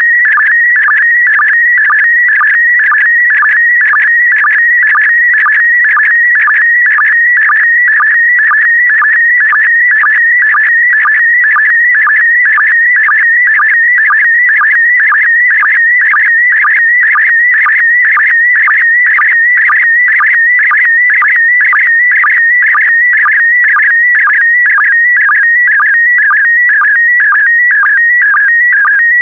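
SSTV PD120 image transmission: a continuous warbling, beeping tone that jumps in pitch within a narrow high band, interrupted by short regular sync pulses about twice a second as the picture is sent line by line.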